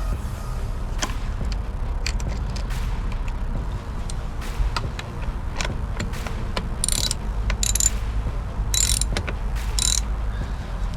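Ratchet wrench clicking and rasping in short runs, with scattered sharp clicks of tools on metal, over a steady low rumble.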